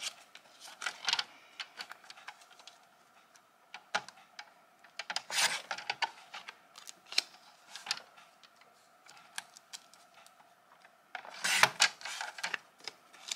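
Scissors snipping through paper sheets of nail water decals, with paper rustling as the sheets are handled: irregular short snips and clicks, and longer rustling stretches about five seconds in and near the end.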